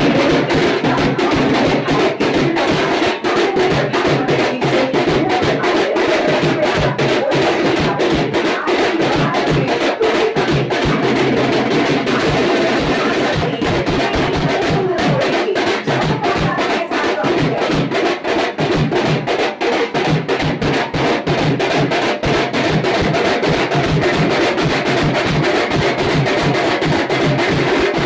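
Loud music driven by fast, steady drumming.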